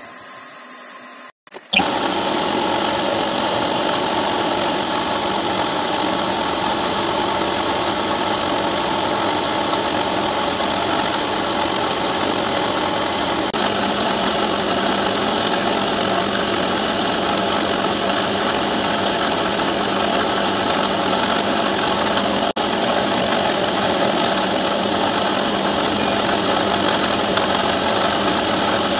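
Milling machine spindle running steadily while a small end mill cuts a shallow pocket in aluminium plate. The cutting noise starts after a short gap about one and a half seconds in.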